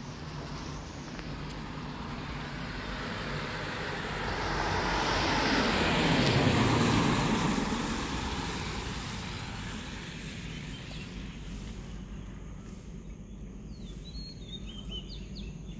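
A road vehicle passing by: its noise swells, peaks about six seconds in, then fades away. Faint bird chirps come in near the end.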